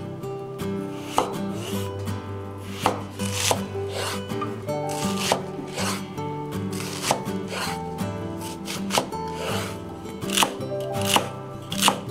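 Kitchen knife cutting potato and onion on a wooden cutting board, the blade knocking on the board in irregular single strokes, quickening near the end as it moves on to celery. Soft background music plays under it.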